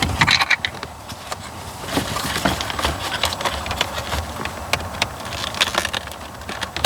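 Sharp plastic clicks and scraping rustle of fingers working the release tab on a white wiring-harness connector at the back of a car's instrument cluster, trying to press the clip down. There are many irregular clicks, thickest about the first second and again near the end.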